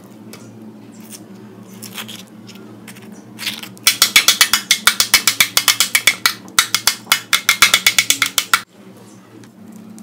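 A metal utensil chopping avocado against a stainless-steel compartment tray: about six sharp metallic clicks a second for roughly five seconds, starting about four seconds in and stopping abruptly. Before that, faint soft scraping as the spoon works the avocado.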